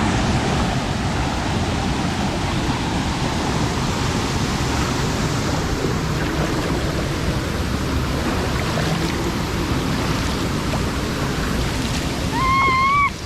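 Steady rushing water, an even noise that holds at one level throughout, with a brief high-pitched call near the end.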